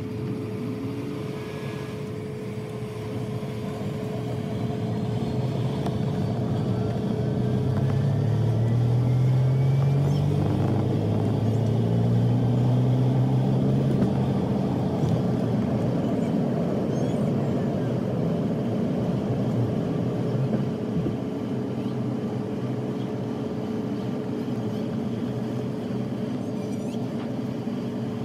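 Cabin sound of a Boeing 717-200's Rolls-Royce BR715 jet engines spooling up to takeoff thrust, with a rising whine over a steady drone. Runway rumble builds and peaks about ten seconds in, then eases about two-thirds of the way through as the jet lifts off and settles into a steady climb drone.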